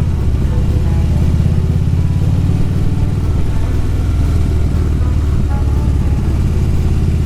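Harley-Davidson Road Glide's V-twin engine running under way on the road, a steady, even low exhaust pulse.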